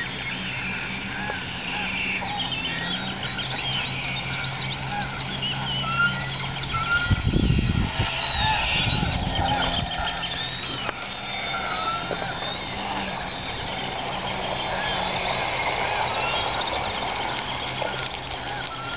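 Many short honking and squawking bird calls over a steady low hum, with a brief loud low rumble about seven seconds in.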